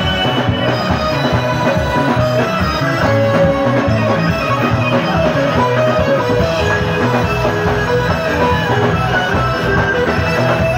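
Guitar-led dance music playing steadily over a loudspeaker sound system, without a break.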